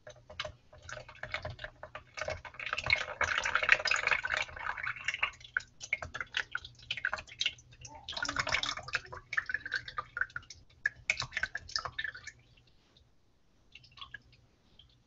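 Coconut milk being poured into a plastic container on a kitchen scale, a steady pour about two to five seconds in and a shorter one about eight seconds in, with small clicks and taps between them.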